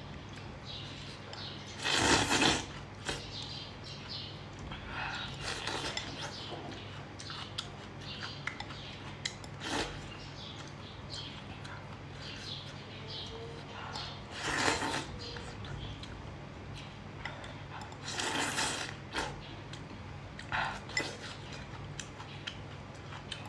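Eating sounds: utensils knocking and scraping on dishes in scattered short bursts, the loudest about two seconds in, over a steady low hum.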